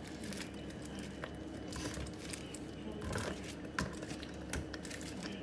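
Fried chicken pieces being lifted off paper towel and put into a pot of stew: a few soft knocks and rustles over a steady low hum.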